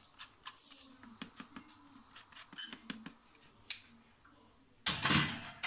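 Plastic spatula scratching and tapping flour and cocoa through a mesh sieve: light, scattered ticks and scrapes, then a brief louder rustle about five seconds in.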